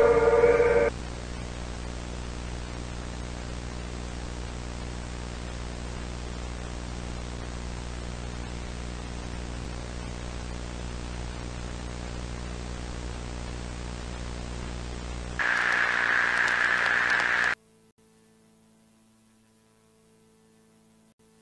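A steady pitched drone of several tones cuts off about a second in. Steady static hiss with a low mains-like hum follows. Near the end a louder burst of harsher static lasts about two seconds and cuts off suddenly, leaving only a faint hum.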